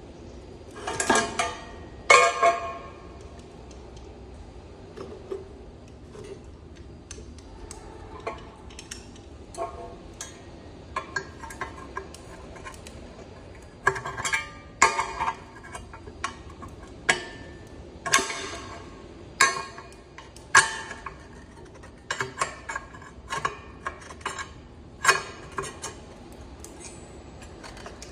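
Small metal tools and parts being handled during hand repair work: irregular clicks, clinks and light clanks at uneven intervals, with two louder rattling clanks about one and two seconds in and a busier run of clicks in the second half.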